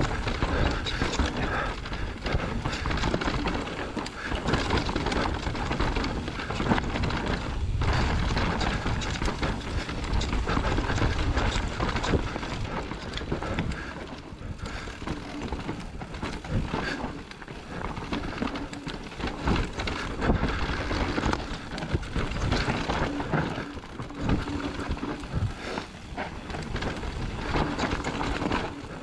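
Electric mountain bike riding fast downhill over a rough forest trail: tyres rolling on dirt and loose stones, with a constant rattle and frequent knocks from the bike over bumps.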